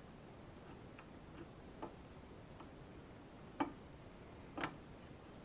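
A few faint, sharp metallic clicks, the two loudest about three and a half and four and a half seconds in: piston rings on a Skoda 105 piston clicking against the piston as they are turned and seated in their grooves.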